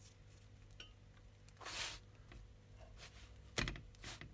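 Quiet handling of naan in a frying pan: a soft swish about two seconds in, then a sharp knock near the end as a hand presses the bread down in the pan.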